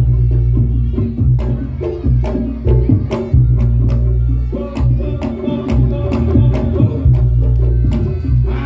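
Reog Ponorogo music played live: heavy, deep drumming under many fast, sharp clicking strikes, with a wavering melody line above.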